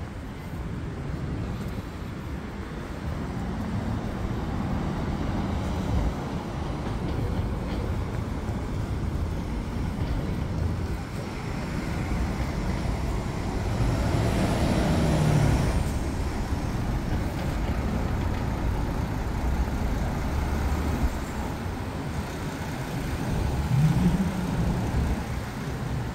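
Road traffic on a city street: cars going by with a steady noise. A louder vehicle passes about halfway through, and near the end an engine note rises and falls as a vehicle pulls away.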